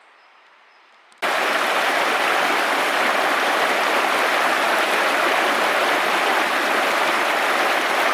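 A loud, steady rush of water cuts in suddenly about a second in, after a quiet start.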